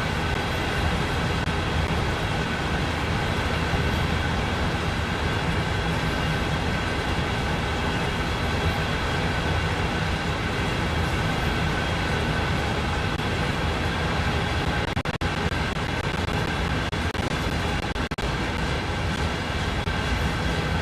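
CSX freight train: a steady, continuous rumble with a constant hum of several held tones, unchanging in loudness.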